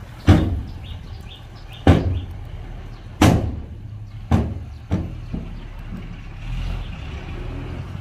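Heavy earthmoving machinery at work: an engine running low and steady under six loud bangs about a second apart, each weaker than the last.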